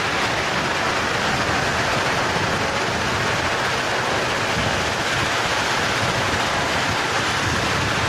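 Limestone crushing plant running, with belt conveyors carrying crushed stone: a steady, even mechanical noise with no distinct rhythm or single impacts.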